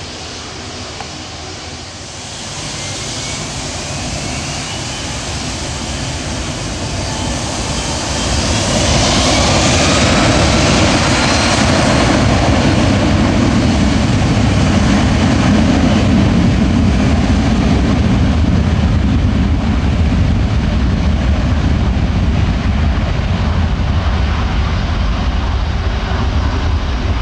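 Boeing 757-224's two Rolls-Royce RB211 turbofans spooling up to takeoff power with a rising whine, then running loud and steady through the takeoff roll. The sound grows louder in steps, about two seconds in and again about eight seconds in.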